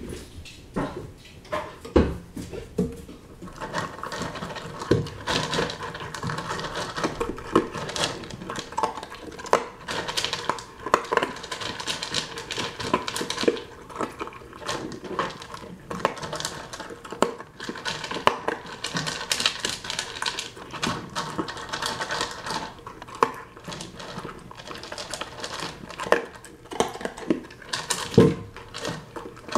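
Weimaraner eating dry kibble from a plastic bowl with an anti-gulping ball in it: a fast, irregular clatter of kibble and ball knocking against the plastic, with a few louder knocks.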